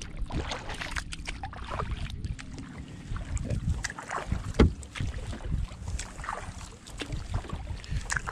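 Kayak paddle strokes dipping and swishing through calm water, over wind rumbling on the microphone. About halfway through there is one sharper, louder knock or splash.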